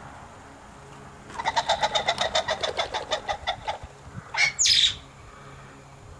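Male ring-necked pheasant calling: a rapid cackling run of about eight notes a second, lasting over two seconds, followed by two loud harsh calls near the five-second mark.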